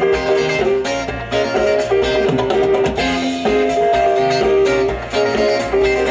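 Live band playing an upbeat tune: guitars over a drum kit, with a melody line of held notes.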